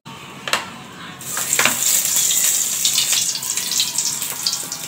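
Cooking oil poured from a bottle into a hot steel kadai on a gas stove, hissing steadily from about a second in, with a couple of knocks as the bottle is handled.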